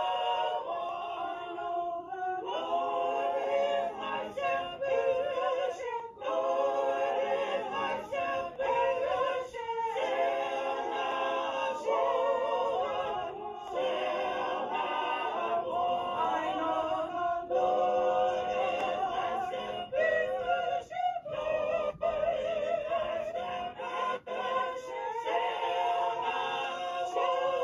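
Small mixed church choir singing unaccompanied, in long held phrases with short breaks for breath; the voices waver with vibrato.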